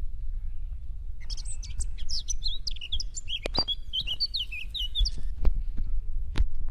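A small bird singing a rapid string of chirps and short whistles for about four seconds, over a steady low rumble, with a few sharp clicks near the end.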